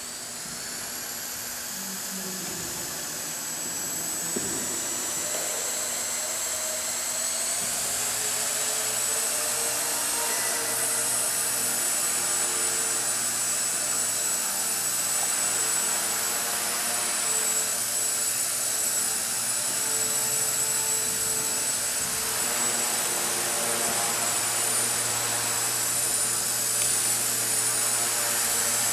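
Walkera 4G6S micro electric RC helicopter's motors and rotors whining, rising in pitch and loudness over the first few seconds as it spools up and lifts off, then a steady high whine that wavers slightly in pitch as it flies around.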